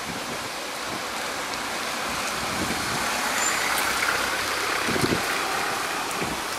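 Cars passing close on a rain-soaked street, their tyres hissing through the water; the hiss swells in the middle and fades. Gusts of wind buffet the microphone now and then.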